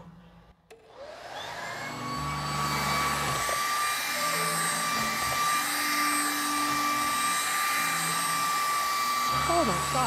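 MOOSOO K23 Pro cordless stick vacuum's brushless motor starting up about a second in, its whine rising over about a second to a steady high pitch over a rush of air. It keeps running steadily as it vacuums the carpeted platform of a cat tree.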